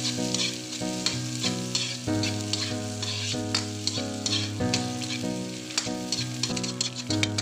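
Chopped onion, garlic and ginger sizzling in hot oil in a wok, stirred with a spatula in short scrapes, as the sauté base for ginisang tahong. Steady background music of held notes plays underneath.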